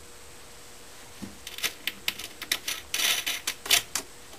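Metal washer and wing nut clicking and rattling against a steel carriage bolt as they are threaded on and spun by hand: a quick, irregular run of small clicks starting about a second in.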